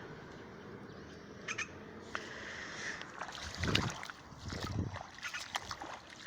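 A goose dabbling and splashing in a shallow puddle: scattered small splashes and sloshes, busiest in the middle, over faint outdoor hiss.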